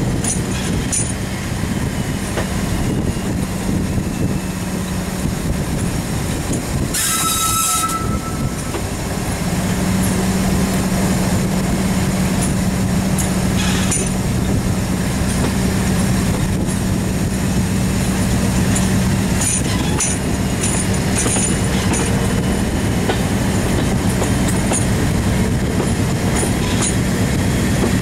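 Diesel locomotive running along the line, heard from its cab side window: a steady engine drone over wheel and rail noise with scattered clicks. About seven seconds in comes a short high-pitched sound, and from about nine seconds the engine note grows a little louder and steadier.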